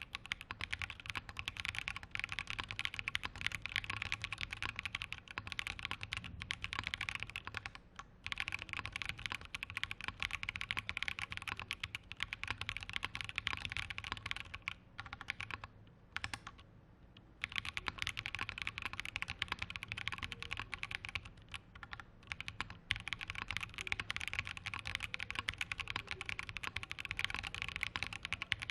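Fast, continuous typing on a mechanical keyboard with Kailh-made all-POM Purple Potato switches, a PC plate and GMK keycaps and stabilisers. The typing breaks off briefly twice, about eight seconds in and just past halfway.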